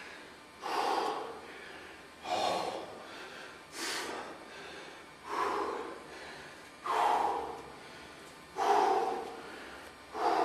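A man breathing heavily, winded from hard back training: about seven loud, forceful breaths, one every second and a half or so, each starting sharply and trailing off.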